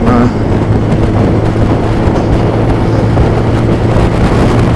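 Motorcycle engine running at a steady speed with a constant low hum, under wind rush on a helmet-mounted phone microphone.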